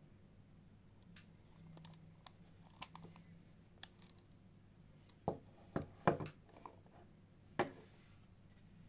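Light clicks and knocks from a vintage Garcia Mitchell 300 spinning reel being handled, then a few sharper knocks in the second half as the reel is set down on a wooden tabletop.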